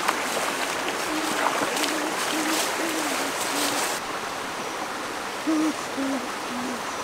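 Shallow stream running over rocks, overlaid by a series of about ten short, low hooting calls, some in quick runs, the loudest of them near the end.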